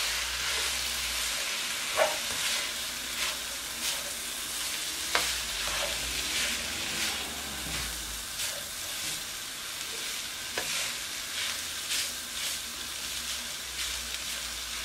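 Fried rice with sausage slices and mixed vegetables sizzling steadily in a white-coated frying pan, stirred with a black plastic spatula that scrapes and taps against the pan about once or twice a second.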